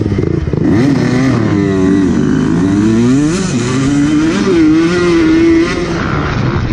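Honda motocross bike engine revving hard as it accelerates up through the gears, its pitch climbing and dropping back at each shift.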